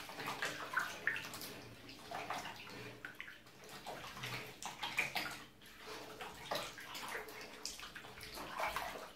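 Water splashing and pouring in a bathtub as conditioner is rinsed out of hair, in uneven splashes and trickles.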